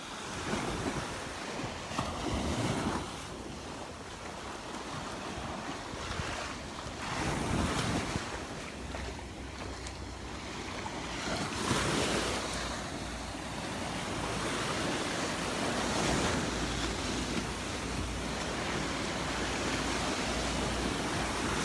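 Gulf of Mexico surf: small waves breaking and washing up on a sandy beach in swells every few seconds, with wind buffeting the microphone.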